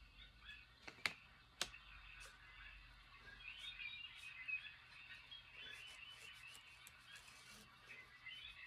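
Near silence with faint, scattered high chirps and two sharp clicks about a second and a second and a half in.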